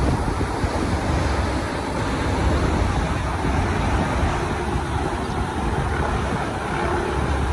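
Steady rushing noise of wind buffeting the microphone while riding a bicycle, with a low rumble and road traffic mixed in.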